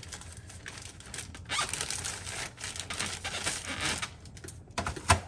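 Plastic bag crinkling and rustling with light clicks and taps of a hard plastic CGC comic slab being handled, and one sharper click near the end.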